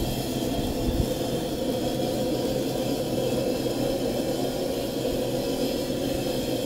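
A steady, low mechanical hum that does not change.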